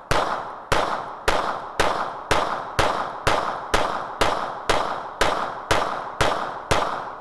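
Samurai's Edge Beretta 92FS 9mm pistol fired in a steady string of fourteen shots, about two a second, each sharp report followed by a short decaying echo.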